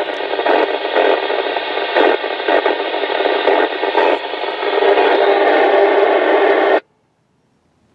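Hash, a steady static hiss, from the speaker of a Kenwood TK-981 900 MHz mobile radio with its squelch open on the repeater's frequency. There is no signal on the channel, only noise. The hiss cuts off suddenly near the end.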